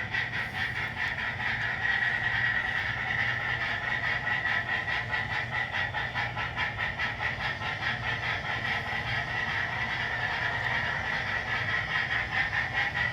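Sound-equipped Bachmann model steam locomotive running, its onboard sound system playing a steady, rhythmic steam chuff through the model's small speaker.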